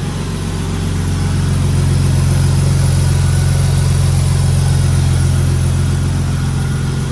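BMW M52 2.5-litre straight-six engine idling steadily, just back together after a VANOS rebuild.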